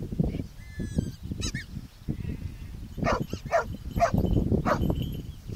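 Springer spaniel barking about four times in quick succession a little past halfway, a search dog's bark indicating the person she has found lying in the grass. Wind rumbles on the microphone.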